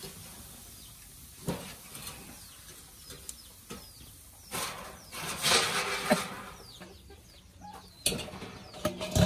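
A person eating a grilled turkey drumstick by hand: biting, tearing off the crisp skin and meat, and chewing, with short crackles and a louder stretch of tearing and rustling about five to six seconds in. A low hum of a voice starts near the end.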